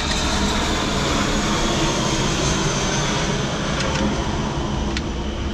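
Steady rumbling background noise with a faint high whine, and a few light clicks from metal engine parts being handled, about four and five seconds in.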